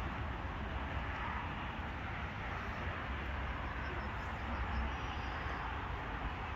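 Steady outdoor background noise at an open-air flea market, with a low rumble underneath and no distinct events.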